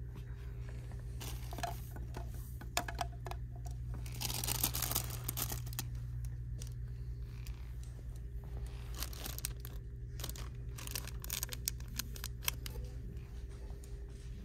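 Plastic packaging crinkling and rustling as it is handled, in irregular bursts that are heaviest about four to six seconds in and again around nine to twelve seconds, over a steady low hum.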